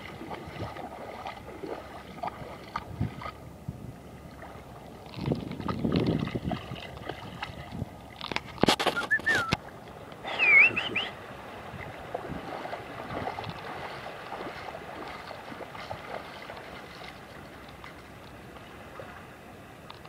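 Shallow water lapping gently at the sand's edge, with two short whistles, the first about nine seconds in and a louder one about eleven seconds in.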